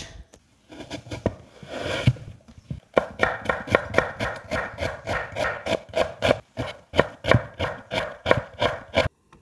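Knife chopping onion on a wooden cutting board: a couple of seconds of scraping and handling, then quick, even strokes about three a second. The sound cuts off suddenly near the end.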